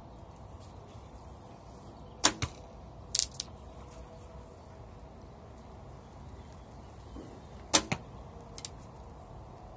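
Sharp clicks and knocks of an arrow against the bow and bowstring as it is nocked and drawn. There are two loud ones, about two seconds in and near eight seconds, with a few lighter clicks between.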